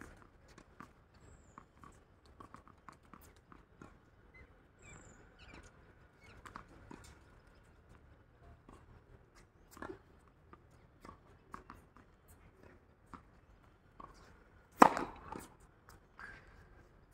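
A tennis racket strikes a ball once with a sharp, loud pock about fifteen seconds in, after smaller knocks of balls and rackets earlier on. Between them, scattered light taps and scuffs of balls and shoes on the hard court.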